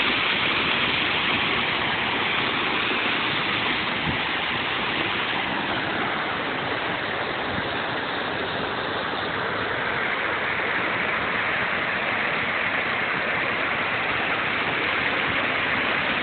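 Waterfall rushing steadily as it pours over rocks, a continuous even roar of falling water.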